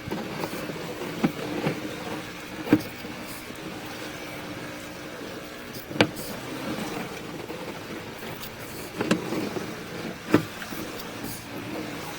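Sewer inspection camera rig being pushed down a sewer line: a steady mechanical hum with a sharp knock every few seconds, about five in all, as the push cable and camera head are fed along the pipe.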